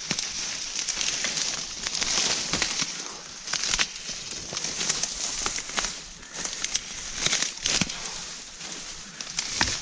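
Dry reed stalks rustling and crackling as someone pushes and tramples through a reed bed, with many sharp snaps of stems breaking along the way.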